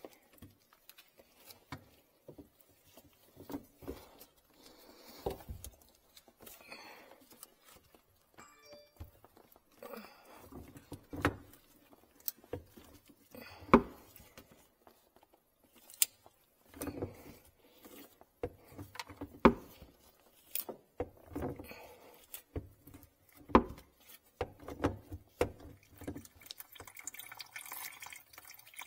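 Irregular clicks and knocks of a hand tool and plastic drain fittings as the PVC drain pipe under a kitchen sink is worked loose. Near the end, water starts trickling from the opened pipe into a plastic basin.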